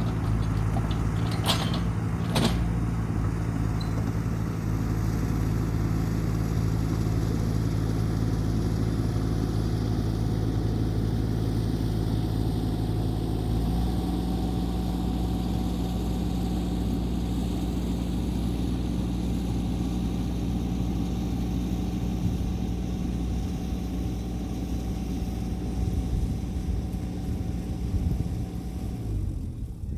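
Diesel engine of heavy land-clearing equipment running steadily, its engine note shifting about halfway through, with two sharp clicks about two seconds in.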